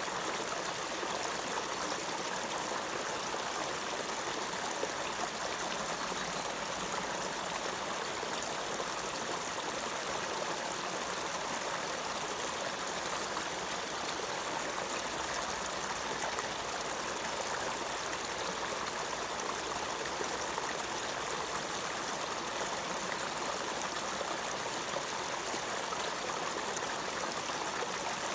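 Running water flowing steadily, an even rushing hiss that holds constant without pauses or changes.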